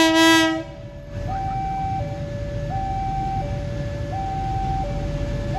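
A CC 202 diesel locomotive sounds a short, loud horn blast at the very start, over a low rumble as it approaches. Throughout, a two-tone electronic warning signal alternates steadily between a high and a low note, each held under a second.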